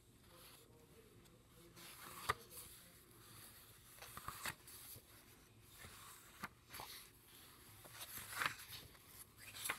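Paper pages of a bound journal booklet being turned by hand: a few soft rustles and flicks spread out, more of them near the end.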